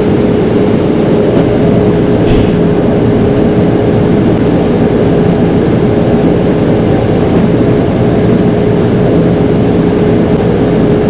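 Heavy harvest machinery running steadily: a loud, unbroken engine drone with a constant mid-pitched whine over it.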